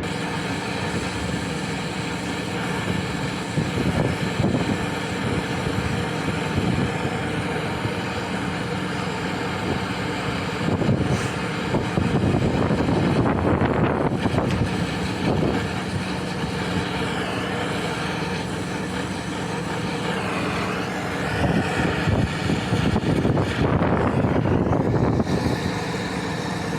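Oxy-acetylene torch hissing steadily while a filter drier is brazed into the refrigerant line, over a steady machine hum. The hiss grows louder for a few seconds about halfway through and again near the end.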